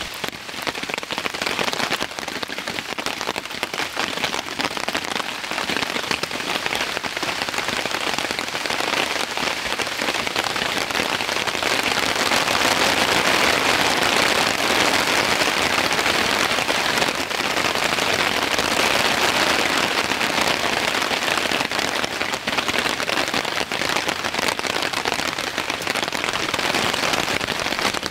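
Rain falling steadily in a dense patter of drops, getting heavier about twelve seconds in.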